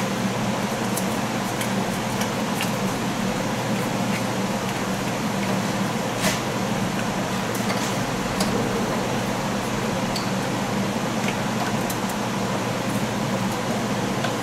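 Steady fan-like mechanical hum, with scattered light clicks and taps from plastic parts and connectors being handled during reassembly.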